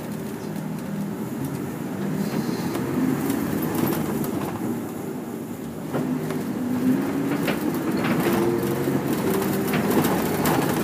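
A route bus's engine and drivetrain running, heard inside the cabin, with a rising whine as the bus gathers speed. There are a few sharp clicks or rattles in the second half.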